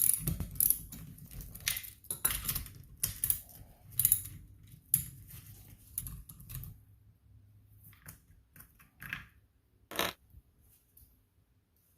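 Metal clicking and clinking of a 9/16 wrench or socket working bolts loose on a pool pump, in short irregular bursts that thin out after about seven seconds to a few single clicks.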